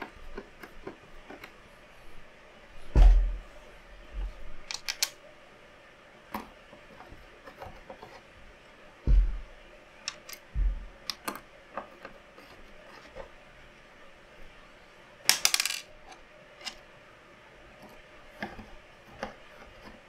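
PC case parts and hardware being handled during assembly: scattered small clicks and metallic clinks of small metal parts, with three dull knocks, about 3, 9 and 10 seconds in, and a longer burst of clinking about 15 seconds in.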